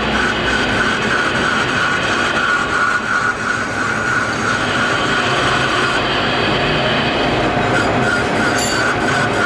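Metal lathe turning an engine crankshaft, the cutting tool taking a cut on a spinning journal: a steady high metallic whine over the machine's running noise.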